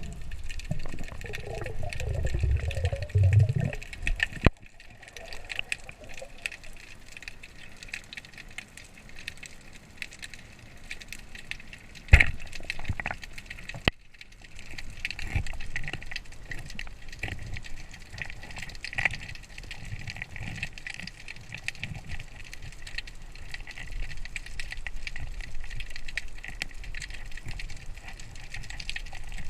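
Underwater ambience picked up by a camera in its housing: a steady crackling hiss, a low bubbling gurgle for the first few seconds, and a sharp click about twelve seconds in followed by a fainter one two seconds later.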